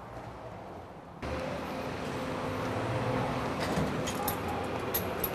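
City street traffic noise, a steady road hum that comes in suddenly about a second in. Light clicks and clinks sound over it in the second half.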